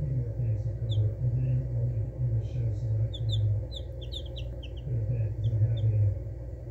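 Domestic chicken chicks peeping: short, high notes in quick twos and threes, busiest around the middle. Under them a loud low hum comes and goes, fading out about six seconds in.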